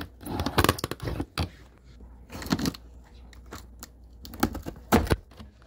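Knife blade slicing through packing tape along the seams of a cardboard box: a series of short, uneven rasping cuts and scrapes on the cardboard.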